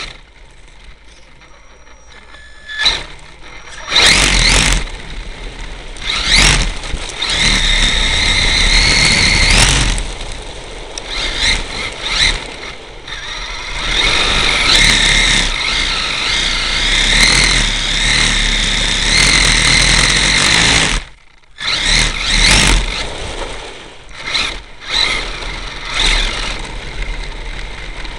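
HPI E-Firestorm Flux RC truck driving hard: its brushless electric motor and gears whine as the speed rises and falls, over tyre and dirt noise, with rattling from a broken front wheel hub. It starts off quietly, then goes loud a few seconds in, with a brief pause just after twenty seconds.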